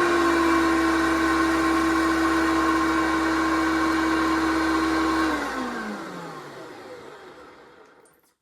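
1993 Hoover PowerMax Concept vacuum cleaner running steadily, then switched off about five seconds in, its motor winding down with a falling whine that fades out over about three seconds.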